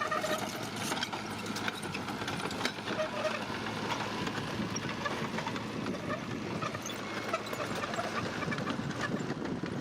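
Bulldozer running with a steady clatter of metal clanks and a few short squeaks, typical of its steel crawler tracks moving.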